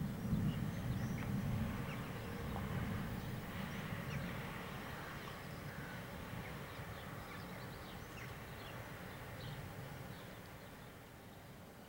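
Distant thunder from an approaching storm rolls low and gradually dies away over about ten seconds, loudest at the start. Small birds chirp now and then in short, high, rising calls above it.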